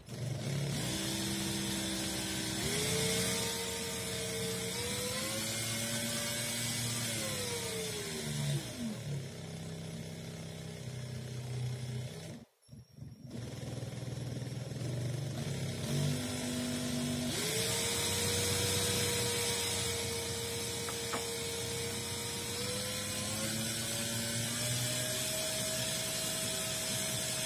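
An engine running with a steady hum, its pitch slowly rising and falling several times; the sound cuts out briefly about midway.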